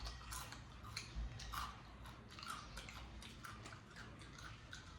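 Faint, irregular crunching of someone chewing crispy batter-fried potato snacks, a few crunches a second.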